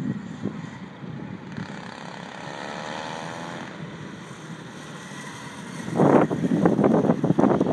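A kart engine whining in the distance, its pitch rising slightly as it accelerates. From about six seconds in, wind buffets the microphone in loud, irregular gusts as the kart passes close by.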